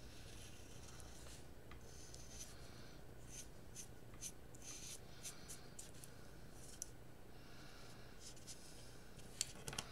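Oil-based paint marker drawing lines on a crayon-and-wax-paper butterfly wing: faint, uneven short scratches of the tip and an occasional tap, over a steady low hum.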